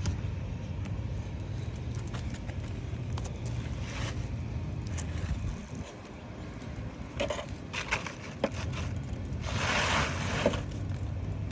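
Asphalt shingles being pried up and unsealed from the roof, with scattered clicks and scraping, and a longer rough tearing scrape about ten seconds in, over a steady low rumble.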